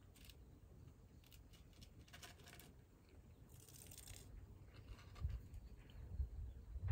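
Faint, irregular crunching clicks of a cat chewing dry cat food. A low thumping rumble builds near the end.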